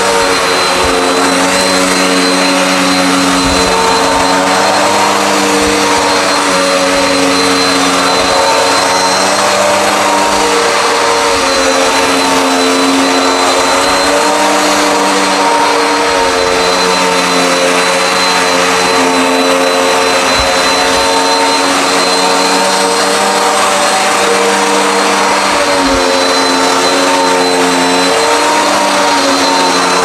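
Dirt Devil Endura Max bagless upright vacuum running steadily while it is pushed over carpet: a loud motor and airflow rush with a thin high whine, its pitch wavering slightly with the strokes.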